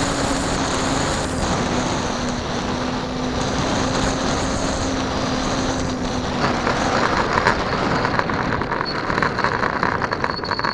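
Onboard sound of a radio-controlled model airplane landing: wind rush and a steady motor tone that drops slightly and fades out, then from about six seconds in the rapid rattle of its wheels rolling on the rough asphalt runway.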